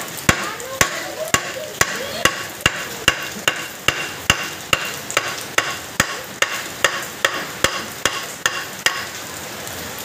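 A hammer tapping on the metal of a Mazda Bongo 4x4 chain-drive transfer case in quick, even strikes, about two a second, each with a short metallic ring. It works the chain and sprocket loose from the case, and the tapping stops near the end.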